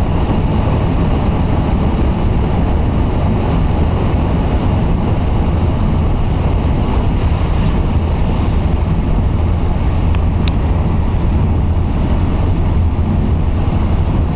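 Steady drone of a moving car heard from inside the cabin, engine and tyres running on a wet road. A brief tick about ten seconds in.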